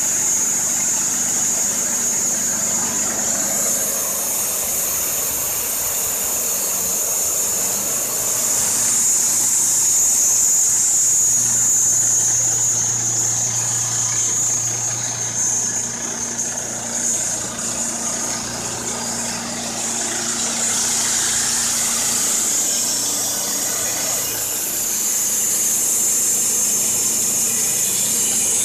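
Wood-Mizer LT15 bandsaw mill's Kohler Pro-15 petrol engine running under load as the band blade saws through a pine log, with a steady high-pitched whine from the blade.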